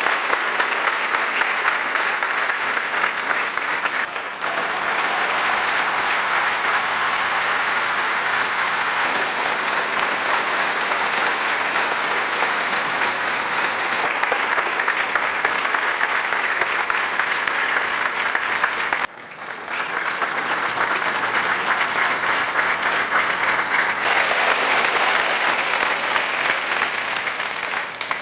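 Audience applause: several separate recordings of crowd clapping joined one after another, with short dips about four seconds in and again about nineteen seconds in where one recording gives way to the next.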